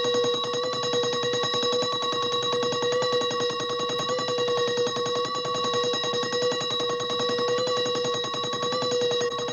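Mechanical alarm clock bell ringing on and on, its hammer striking the bell in a rapid, unbroken rattle.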